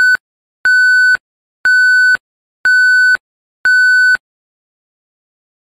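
Electronic beep repeated once a second: a steady high tone about half a second long, five times, stopping about four seconds in.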